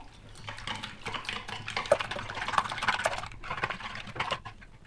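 Wire whisk beating raw eggs with chopped vegetables in a plastic bowl: a fast, continuous patter of clicks as the wires strike the bowl, easing off near the end.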